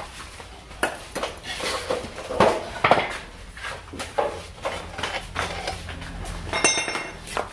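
Irregular metallic clinks and knocks of hand tools and steel engine parts as connecting-rod caps and bolts are fitted with a 14 mm wrench on an Isuzu Panther diesel engine during a rebuild, with a short bright metallic ring near the end.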